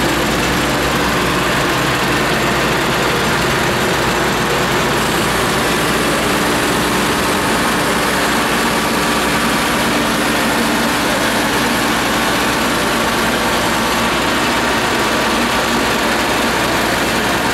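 Claas Tucano 430 Montana combine harvester's diesel engine running steadily.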